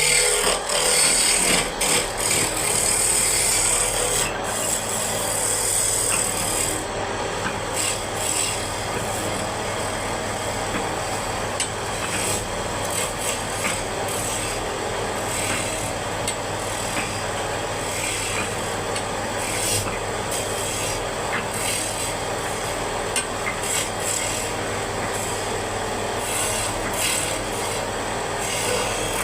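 Wood being worked by hand with an abrasive or cutting tool: a continuous scraping with scattered small clicks, louder for roughly the first six seconds and then steady.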